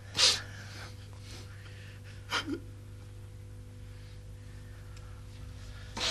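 A person breathing audibly: a sharp intake of breath just after the start, a shorter double breath with a brief hum of voice about two and a half seconds in, and another breath near the end. A low steady electrical hum runs underneath.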